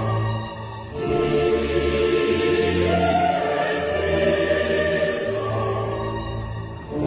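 Background music of a choir singing long held chords over a low orchestral bass, the chords changing about a second in and again near the end.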